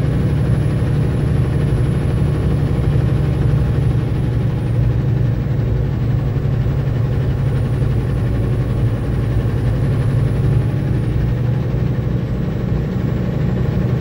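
Logging truck's heavy diesel engine running steadily, a deep even hum with no change in speed.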